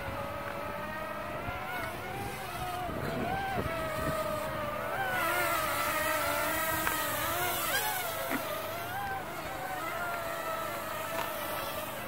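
Parrot Swing mini drone flying, its four small electric motors and propellers giving a buzzing whine whose pitch wavers up and down as it is steered. A breathy hiss swells for a few seconds in the middle.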